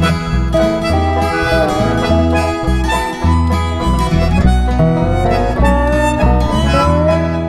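Instrumental intro of a country-bluegrass song: a lead melody of held, bending notes over picked strings and a steady bass line.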